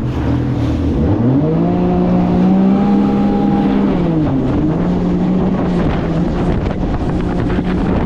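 Jet boat engine and jet drive running on the water: the engine revs up about a second in, holds a higher speed, then eases back to a steadier lower speed around four seconds in.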